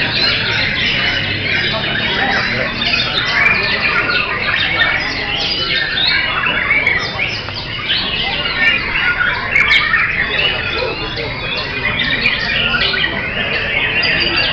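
Caged white-rumped shamas (murai batu) singing at once: a loud, unbroken tangle of overlapping whistles, chirps and harsh notes.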